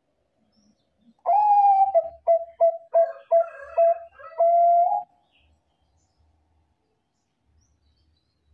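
Zebra dove (Bangkok-bred perkutut) cooing one song phrase starting about a second in: a long opening note, a quick run of short clipped notes, then a long closing note, about four seconds in all.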